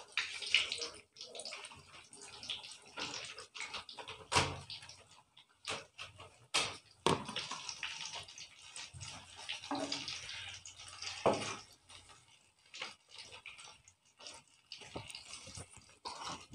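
Breaded chilli bites deep-frying in a pan of hot oil, sizzling and crackling steadily, with a few sharp clicks along the way.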